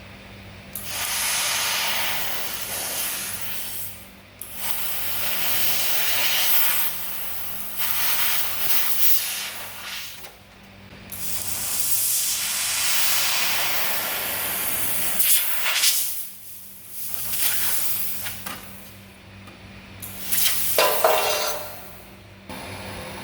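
Handheld fiber laser cutting head firing while test cutting, its assist gas and the cut hissing in about six bursts of a few seconds each. A steady low electrical hum from the machine runs underneath.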